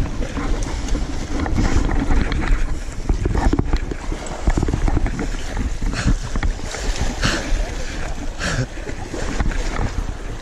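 Wind buffeting the microphone over seawater washing and splashing against the rocks, with several sharper splashes between about six and nine seconds in as the hooked fish is brought up at the surface.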